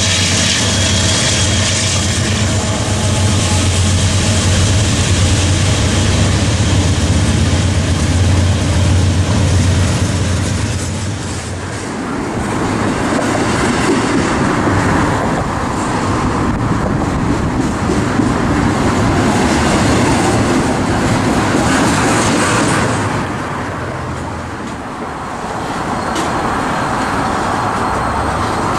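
Diesel-electric freight locomotives running as they pass for the first dozen seconds or so, then a long train of double-stack intermodal well cars rolling by, wheels clattering over the rails.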